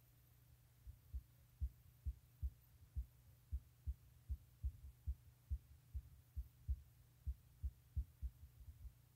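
A string of soft, deep thumps, about two to three a second and unevenly spaced, over a steady low hum.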